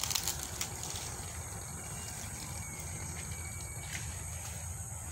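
Field insects chirring in a steady high-pitched drone, over a steady low rumble, with a few faint clicks near the start and about four seconds in.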